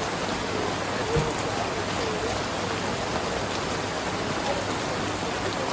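Steady rain falling, an even hiss of drops on hard surfaces.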